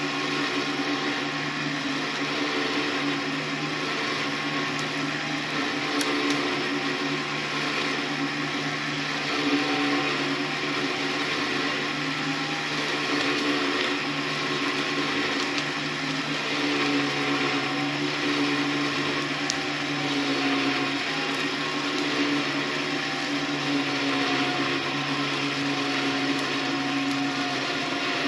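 Electric 12,000-pound vehicle winch motor running steadily under load as it pulls a log, its whine wavering slightly in pitch.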